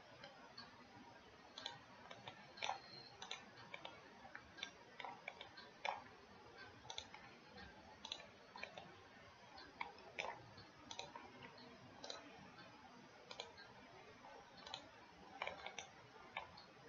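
Faint computer mouse clicks, short and sharp at irregular intervals of about a second, over a low steady hiss.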